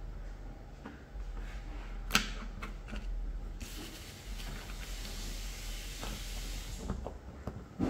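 Small parts clicking and tapping as a solar car kit is put together, with one sharper click about two seconds in. A steady hiss runs for about three seconds in the middle, over a low hum.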